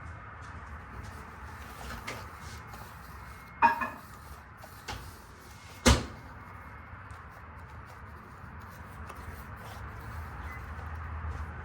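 Gym chalk packaging handled up close: a few light taps, a short rattling clack about three and a half seconds in, and a sharp click about two seconds later.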